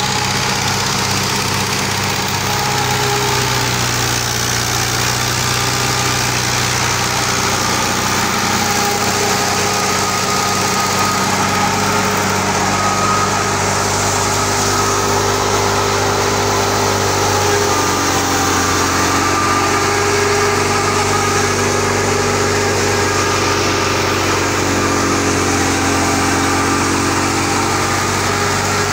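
Fiat 640 tractor's four-cylinder diesel engine running steadily, driving a thresher through its PTO shaft, with the thresher's drum and belt pulleys running along with it.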